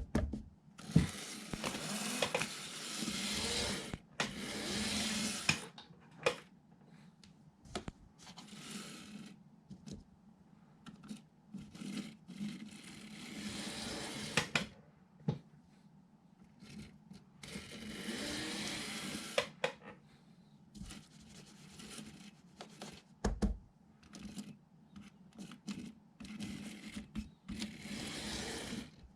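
Small electric motor of an N-gauge model train whirring in about seven short runs of one to three seconds each, with scattered clicks in the pauses between.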